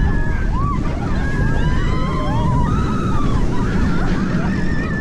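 Heavy wind buffeting the microphone with the low rumble of a moving roller coaster train, and several riders screaming and yelling at once.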